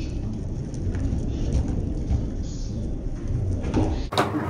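Skateboard wheels rolling on a concrete garage floor, a steady low rumble. It cuts off abruptly about four seconds in, giving way to music.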